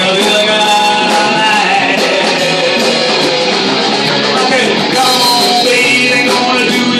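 Live rock band playing loudly, with electric guitar.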